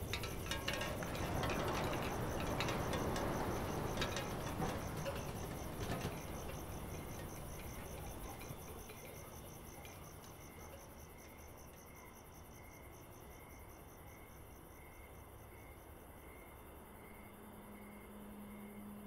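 Crickets chirping steadily: a fast, even high-pitched pulsing, with a second, slower pulsing call lower down. A louder hiss with a few clicks covers the first several seconds and then fades, and a low steady hum comes in near the end.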